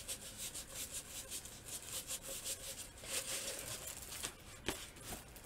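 Clear plastic film on a rolled diamond-painting canvas crinkling and rustling as it is unrolled and smoothed flat by hand: a quick, uneven crackle with a few sharper crackles near the end.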